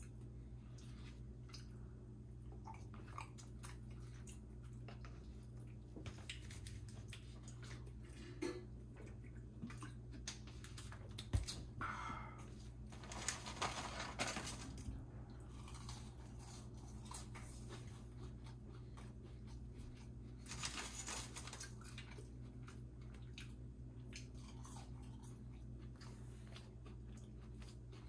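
A person chewing and biting food close to the microphone: scattered crunchy and wet mouth sounds, busiest about halfway through, over a steady low hum.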